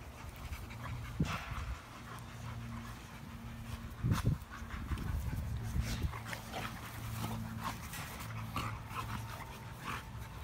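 American bully dogs play-fighting, panting with a low rumbling sound that comes and goes in stretches of a second or two. A couple of short thumps come about a second in and again around four seconds in.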